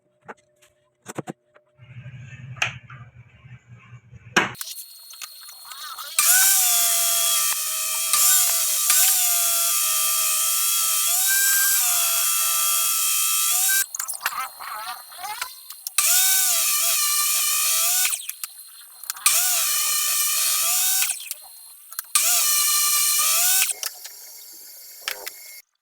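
Homemade circular table saw ripping wood strips: one long cut, then three shorter passes, each with loud cutting noise over the motor's whine. The whine's pitch sags briefly as the blade takes load and then recovers.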